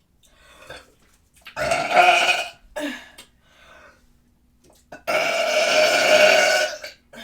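A person burping loudly twice: a burp of about a second, about one and a half seconds in, then a longer one of nearly two seconds, about five seconds in.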